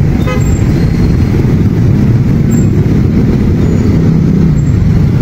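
Road traffic in slow, congested flow: the engines of a jeepney, motorcycles and tricycles running close by, a loud steady low rumble.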